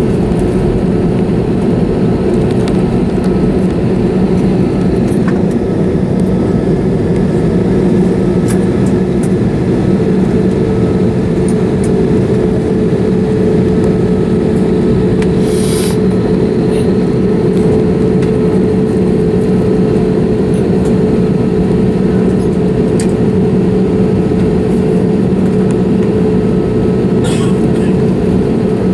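Steady cabin rumble and hum inside an Airbus A320neo on the ground after landing, with two short clicks, one about halfway through and one near the end.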